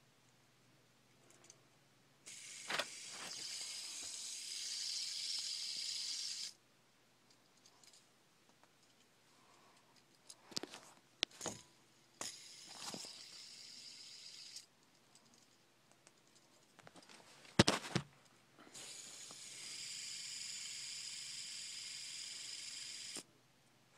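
Fidget spinner's bearing whirring with a high, even hiss in three spins of a few seconds each, each starting and stopping abruptly, with sharp clicks of handling in between.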